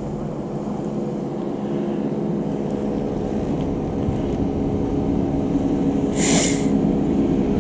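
A motorboat's engine humming steadily out on the lake, slowly growing louder as it comes nearer. A brief hiss is heard about six seconds in.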